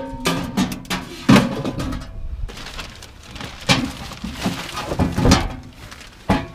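Empty metal electrical boxes being handled and set down, giving a handful of separate clanks and knocks with short metallic ringing.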